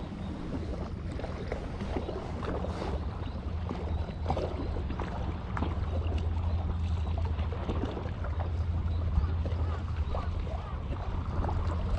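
A boat engine droning steadily at a low pitch, with faint scattered clicks and a light hiss over it.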